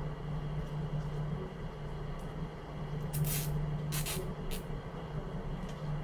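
A steady low hum of room machinery, with three short hissing scrapes from hand work at a metal door frame about three to four and a half seconds in.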